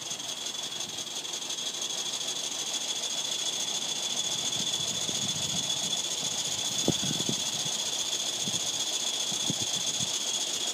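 Coal-fired Roundhouse Fowler live-steam model locomotive sitting in steam with its bypass valve open: a steady high whine over a hiss, with light irregular knocks and rattles, the sharpest about seven seconds in.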